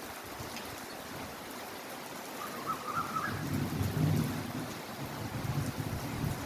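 Steady heavy rainfall, with a low rumble swelling in about halfway through and a faint brief high tone shortly before it.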